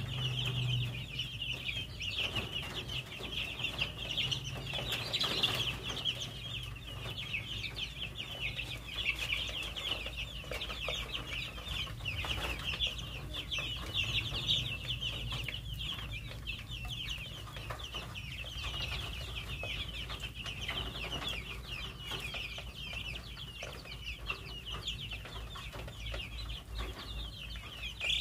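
A group of young chicks peeping constantly, many short high calls overlapping without a break.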